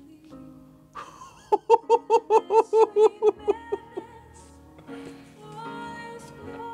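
A song playing through Focal Sopra No. 3 tower speakers driven by an Audio Research Reference 80S tube stereo amplifier. About a second and a half in comes a loud run of about a dozen quick pitched pulses lasting about two seconds, followed by softer held notes.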